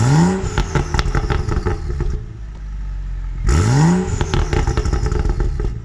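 A BMW 235i with a catless downpipe is revved twice in quick blips, the pitch rising sharply each time. Each blip is followed by about two seconds of exhaust crackling and popping as the revs fall.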